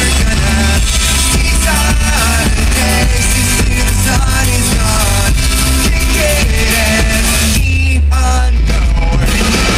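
Rock band playing a song live: a loud, dense full-band mix with heavy bass and a pitched melody line. The high end briefly thins out about eight seconds in.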